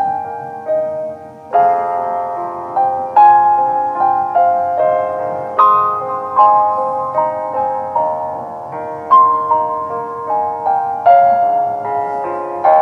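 Solo piano playing a melodic theme, with chords struck every second or so and notes ringing on between them.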